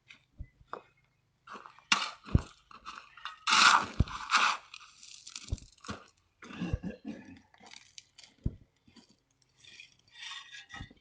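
Irregular crunching and scraping with several sharp knocks, from hands-on work in the dirt of a French drain repair.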